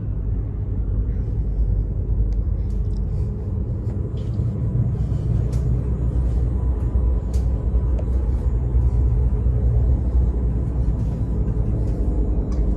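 Steady low rumble, with a few faint ticks over it.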